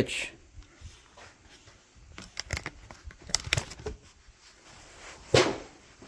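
Handling noise: scattered light clicks, knocks and rustles as the test light and its lead are moved about, with one louder brief rasp about five and a half seconds in.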